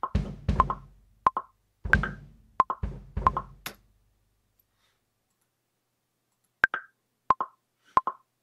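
Programmed drum beat from a software drum kit playing back, kick and snare hits at 90 bpm, that stops a little before four seconds in. After about two and a half seconds of near silence, a metronome count-in starts: three sharp clicks about two-thirds of a second apart, marking the lead-in to recording.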